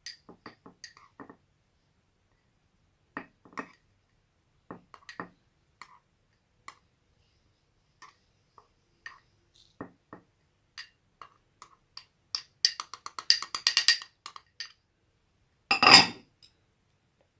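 Light clinks and taps against a glass bottle while ground herbs are added to it, with a quick run of rapid taps about thirteen seconds in and a heavier knock near the end.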